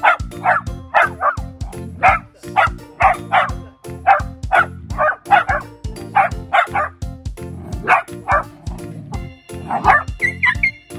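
Miniature dachshunds barking in a quick run of sharp barks, about two a second, easing off near the end, over background music.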